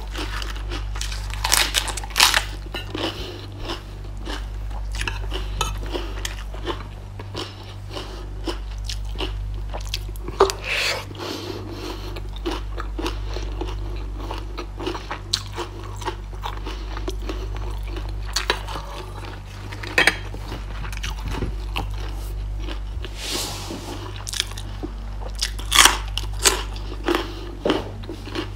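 Close-miked biting and chewing of crunchy raw vegetables (fresh romaine lettuce leaves and a carrot stick), with sharp crunches at each bite and wet mouth sounds between. A steady low hum runs underneath.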